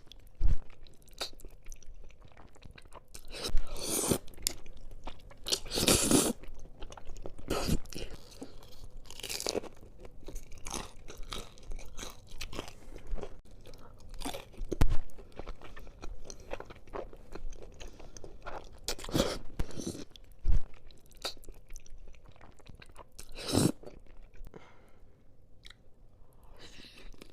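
Close-miked eating of ramen noodles with dumplings and rice cake: steady chewing and wet mouth sounds, with louder bites every few seconds.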